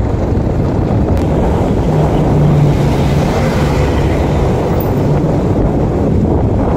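Wind rushing over the microphone of a motorcycle in motion, over the motorcycle's engine running steadily.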